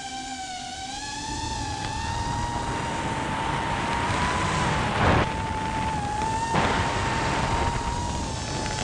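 Steady high-pitched whine of a racing drone's motors, its pitch drifting slightly up and down, over a rushing noise that builds after a second or so, with two brief louder swells in the second half.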